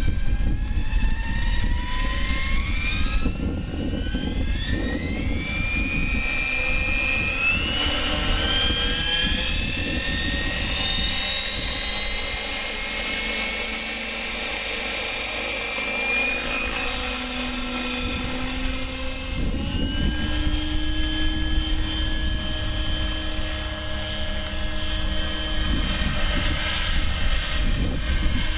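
Align T-Rex 600 radio-controlled helicopter's whine rising steadily in pitch over the first ten seconds or so as the rotor head spools up, then holding fairly steady, with a shift in pitch about twenty seconds in. Wind rumbles on the microphone underneath.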